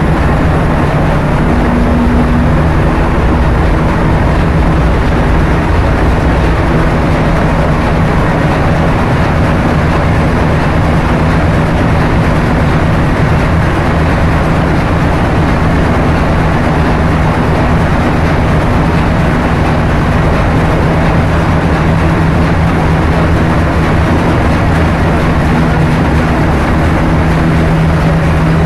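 Loud, steady drone of a container ship's engine room machinery, with a constant low hum and no break or change.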